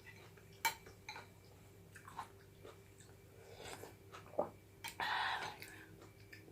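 Close-miked chewing of a mouthful of grilled chicken bones, with scattered sharp crunches and clicks. A louder noisy burst comes about five seconds in.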